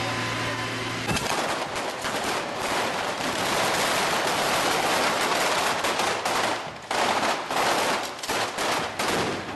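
Fireworks and firecrackers set off on a bonfire pile of branches: a dense, rapid crackle of bangs starting about a second in, with a brief lull near two-thirds through, then cutting off just before the end.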